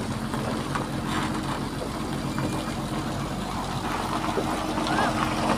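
Heavy diesel truck's engine running steadily at low speed, hauling a long trailer loaded with a concrete bridge girder; an even, low drone.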